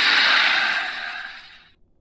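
Dinosaur creature sound effect for a Carnotaurus: one long breathy exhale with no clear pitch. It comes in sharply and fades away over nearly two seconds.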